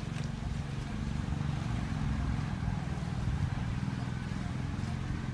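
Steady low rumble with no distinct separate sounds.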